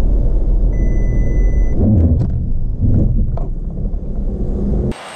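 Low road and engine rumble inside a Volkswagen T-Cross during an automatic emergency braking test, easing off as the car brakes to a stop short of a pedestrian target. A single steady high beep about a second long sounds near the start, and a few short knocks fall in the middle. Near the end the rumble cuts off abruptly to a brighter hiss.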